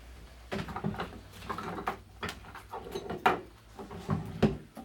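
A shoe being pulled off a foot and put down: irregular rustling and scuffing with a few sharp knocks, the loudest two near the end.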